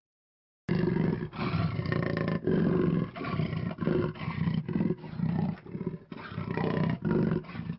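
Leopard calling: a long run of low, rough grunting roars with short breaks between them, starting just under a second in.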